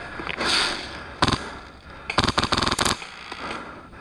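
Airsoft guns firing on full auto: a short burst about a second in, then a longer rattling burst a little after two seconds.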